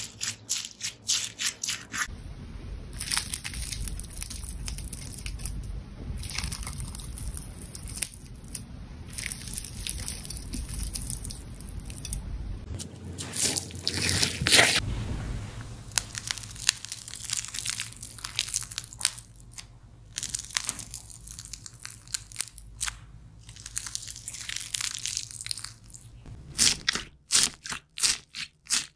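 Jelly slime being squeezed and worked by hand, a steady sticky squelching broken by runs of quick crackling pops at the start and again near the end.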